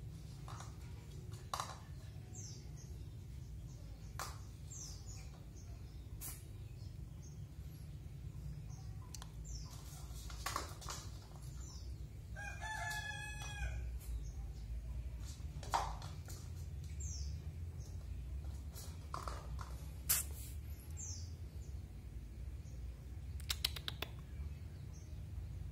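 A rooster crows once about halfway through, with short high chirps from small birds every few seconds and a few light clicks over a steady low hum.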